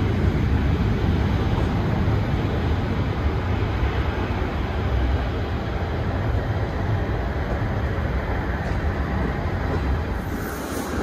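Train running: a steady, low rumble of the moving train.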